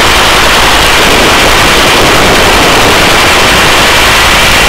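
Loud, steady rushing noise of a helicopter hovering with the cabin door open, rotor wash and engine blended into one continuous hiss, with a faint steady high whine.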